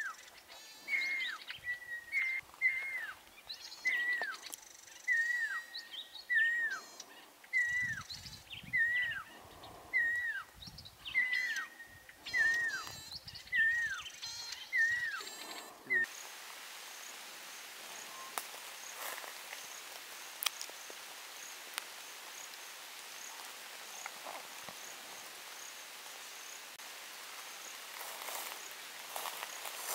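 Pearl-spotted owlet calling a long series of whistled notes, each sliding downward, about one every 0.7 seconds. The calling stops abruptly about 16 seconds in, leaving a faint outdoor background with a faint, regular high insect chirp.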